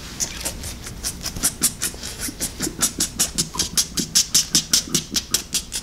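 Rapid, even clicking, about seven clicks a second.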